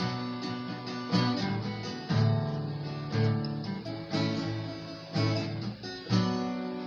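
Acoustic guitar strumming chords, about one strum a second, in the instrumental closing bars of a song, dying away at the end.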